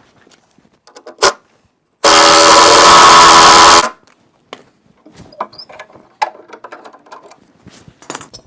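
A power tool running loudly in one steady burst of about two seconds, starting and stopping abruptly, with a sharp click about a second before it.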